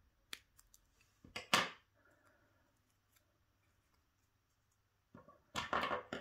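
Small scissors cutting folded 1 mm foamiran (thin craft foam): a few light clicks, then a sharp snip about a second and a half in. A second, longer burst of snipping and handling noise comes near the end.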